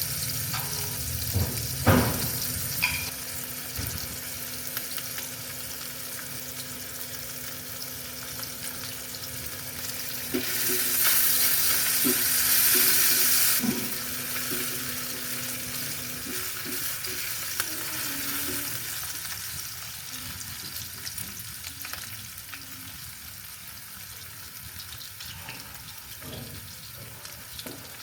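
Kitchen cooking sounds: food sizzling in a pan with stirring and small utensil clatters. A sharp knock comes about two seconds in, and a louder rush of hiss lasts about three seconds near the middle.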